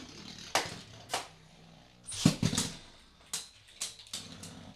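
Beyblade Burst spinning tops launched one after another into a plastic stadium: sharp clicks and clacks of launches and of tops landing and striking, the loudest cluster about two seconds in. Between them the spinning tops keep up a steady low whir.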